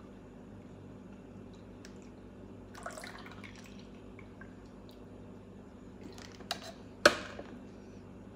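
Plastic jug of an Ikon citrus juicer being tipped and handled, with juice dripping and sloshing inside and a few light clicks. About seven seconds in there is one sharp knock as the juicer is set down.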